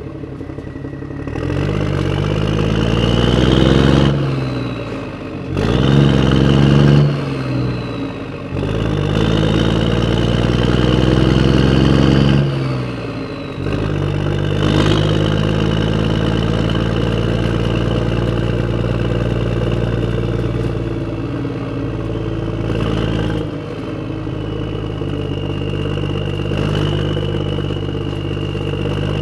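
Tractor engine sound revving up and falling away three times, then running at a steady pitch from about halfway on, with a thin high whine over it.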